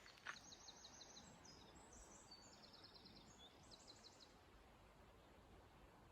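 Faint songbird singing several quick phrases of rapid high notes over near-silence, stopping about four seconds in.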